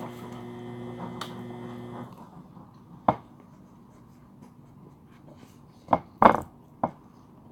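A steady background hum cuts off about two seconds in, then short eating noises close to the microphone: one about three seconds in and three more, quickly one after another, near the end.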